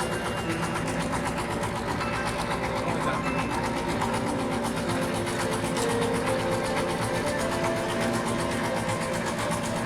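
A boat's engine running steadily, with a fast, even beat.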